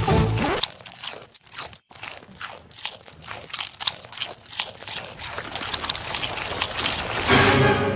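A goat crunching Doritos tortilla chips: an irregular run of crisp, dry crunches, several a second.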